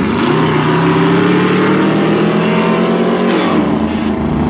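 A vehicle engine at full throttle accelerating in a roll race, its pitch climbing steadily for about three seconds, then dropping sharply at an upshift and pulling again. Wind and road noise run underneath.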